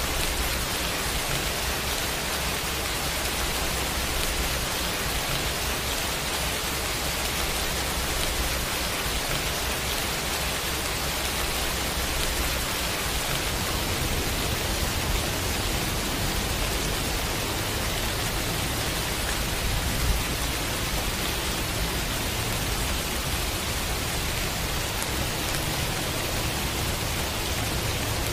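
Steady heavy rain, an even hiss with a low rumble underneath that comes and goes. One brief sharp tap about two-thirds of the way through.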